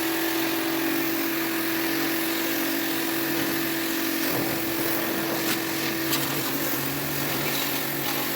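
A small electric motor running steadily under a broad hiss, with a constant hum whose main tone fades about six seconds in.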